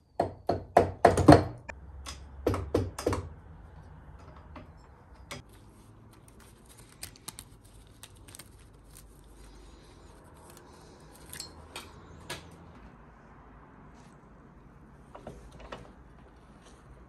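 A quick run of sharp knocks and clacks for about three seconds, then scattered faint clicks: tools and parts being handled as the cylinder head of a Royal Enfield Bullet 350 engine is stripped down.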